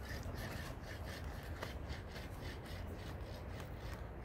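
Rhythmic scraping strokes, several a second, with a steady low rumble underneath.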